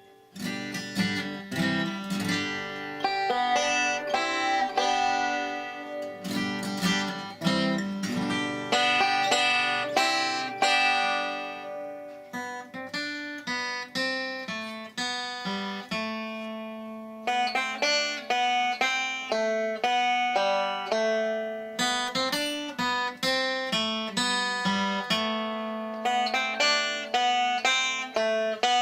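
Background music: acoustic guitar picking a melody over steady plucked chords.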